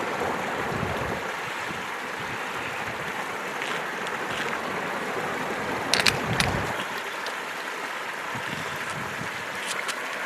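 Flowing stream water, a steady rush, with a few sharp clicks about six seconds in.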